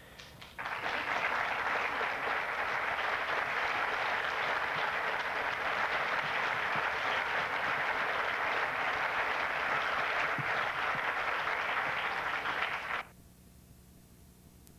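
Audience applauding steadily, starting about half a second in and cutting off abruptly near the end.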